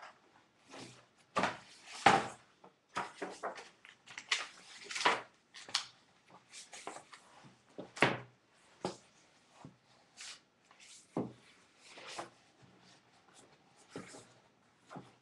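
Irregular rustling and handling noises of a large book being picked up and its pages turned, with a few dull knocks.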